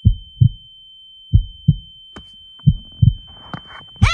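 Heartbeat sound effect: low double thumps, lub-dub, repeating about every 1.3 s over a steady high-pitched tone. A woman's voice cuts in loudly at the very end.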